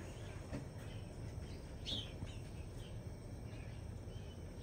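Small birds chirping in short, scattered calls, the clearest about two seconds in, over a steady low outdoor rumble.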